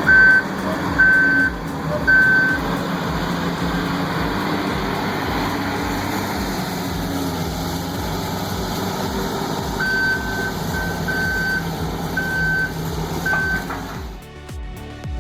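Heavy diesel machine engine running steadily under a repeating high-pitched travel/reversing alarm: three beeps about a second apart at the start, then another run of beeps later on.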